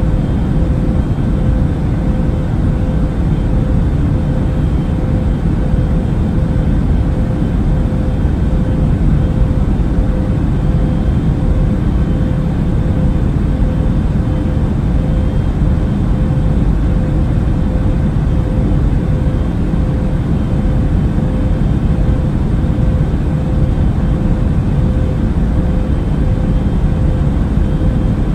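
Airliner cabin noise: a steady, deep rumble with a faint even hum over it.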